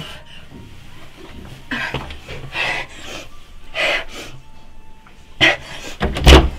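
A young woman breathing hard in ragged gasps, a few seconds apart, as if in distress. Near the end comes a louder clatter from the bathroom door handle.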